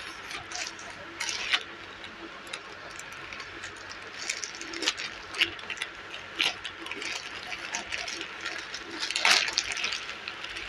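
Plastic courier mailer bag crinkling and rustling in irregular spurts as hands tear it open and pull out a plastic-wrapped fabric piece.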